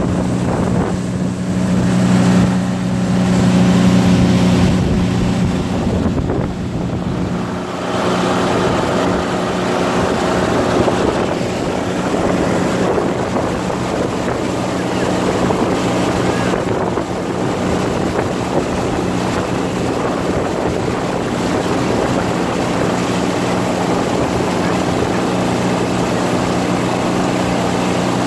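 Inflatable boat's motor running steadily with a low hum, a little louder for a few seconds near the start, under wind buffeting the microphone and water rushing past the hull.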